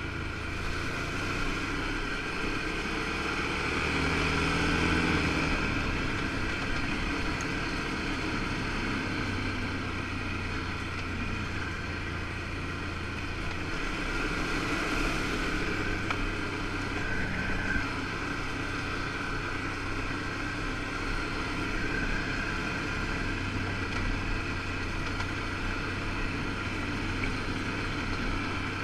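A 2013 Can-Am 1000 XT ATV's V-twin engine running under way at trail speed, getting a little louder around four to five seconds in and then holding steady.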